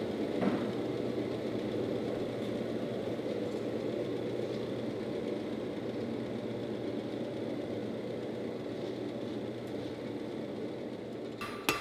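Forge-shop equipment running with a steady drone and low hum. Near the end, a couple of sharp metallic strikes that ring.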